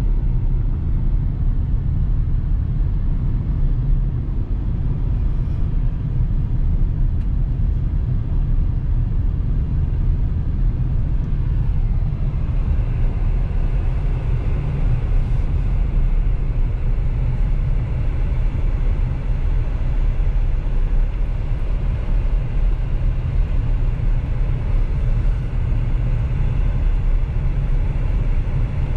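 Steady low rumble of engine and road noise heard inside a moving car's cabin, with a little more tyre hiss from about twelve seconds in.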